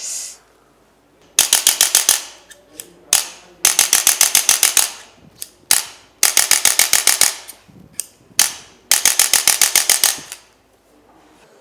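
A handheld chiropractic percussion instrument firing four bursts of rapid mechanical clicks, each about a second long at roughly ten clicks a second, with a few single clicks between the bursts.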